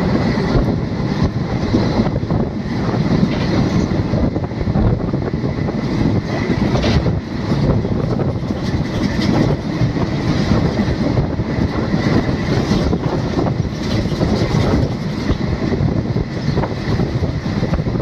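Indian Railways passenger train running at speed, heard from an open coach doorway: a steady, loud rumble of wheels on the rails with some clickety-clack from the track.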